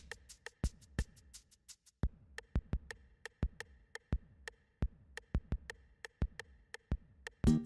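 Background music: a sparse electronic beat of light clicks, about three or four a second, over soft held tones. Louder, fuller music comes in near the end.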